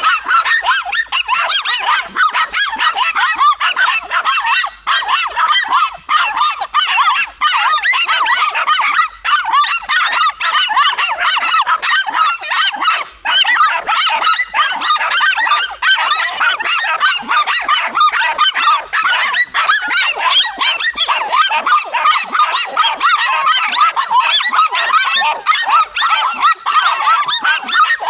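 A pack of dogs barking and yapping nonstop at a cornered lizard, many high-pitched barks overlapping into one dense, frantic chorus.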